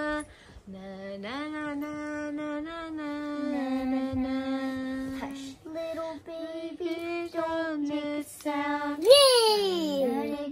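A young girl singing a wordless tune in long held notes, ending in a high swoop up and back down near the end.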